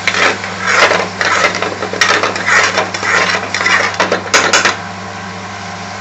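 Metal utensil scraping and clattering in a frying pan as a curry is stirred and tossed, ending with a couple of sharp metallic clinks, over a steady low hum.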